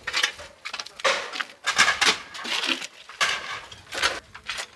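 Rubble being handled and cleared: an irregular run of clattering knocks and scrapes from broken bricks, plaster and wood being shifted.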